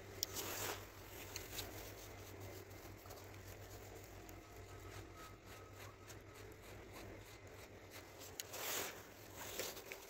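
Faint rustle of a jacket sleeve and handling noise as the rod is worked, with a brief swish about half a second in and another near the end, over a low steady hum.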